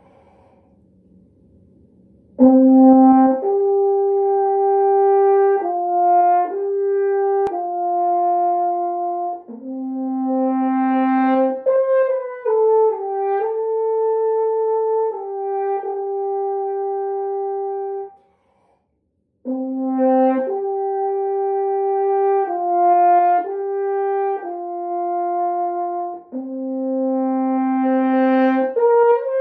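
Solo French horn playing a slow melody of long held notes, starting about two seconds in, with a short breath pause about two-thirds of the way through before the line resumes.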